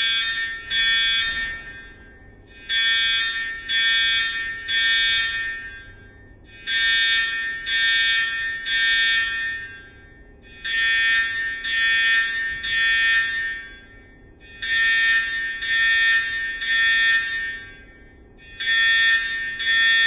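School fire alarm sounding in groups of three long, steady-pitched beeps, with a short pause between groups: the three-pulse evacuation signal.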